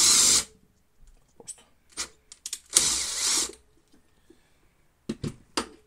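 Cordless drill running in two short bursts, one at the start and one about three seconds in, turning an M8 extractor bolt into a Moto Guzzi alternator rotor to press it off its shaft. Light clicks and knocks of tool on metal come between and after the bursts.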